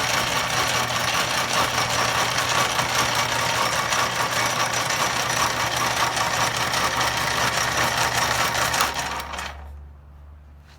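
Homemade wire-stripping machine running, driven by an old bandsaw motor geared down through gears and a pulley belt: a loud, steady mechanical noise with a low hum underneath. It dies away over about a second near the end.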